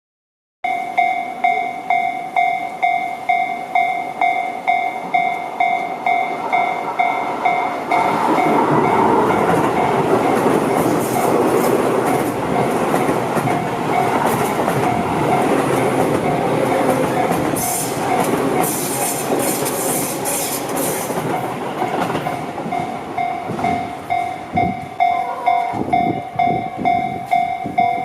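Japanese railway level-crossing warning bell ringing steadily, about two electronic dings a second. From about eight seconds in, a Tobu Tojo Line train passes through the crossing for some fourteen seconds with a rush of wheel and rail noise, while the bell keeps ringing.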